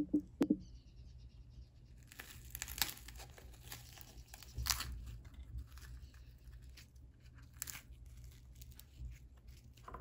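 Crisp crust of a freshly baked pão de queijo (Brazilian cheese bread) crackling and tearing as it is pulled apart by hand, with a few sharper crackles among the rustle. Two soft knocks come at the very start.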